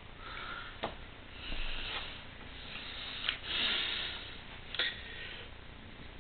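Cloth puppets being handled and swapped: soft fabric rustling in a few short stretches, with three light clicks or knocks.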